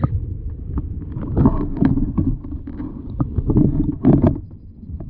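Muffled low rumble of water against an underwater camera's housing, with clusters of knocks and thumps as the camera is moved in the hole, loudest about a second and a half in and again near four seconds.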